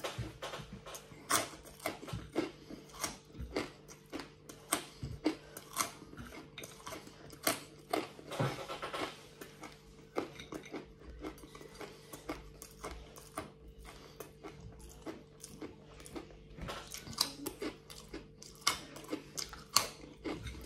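A person chewing and biting crispy fried garlic pieces coated in super-hot chilli powder: sharp, irregular crunches about once or twice a second. A longer breathy blow comes about eight seconds in.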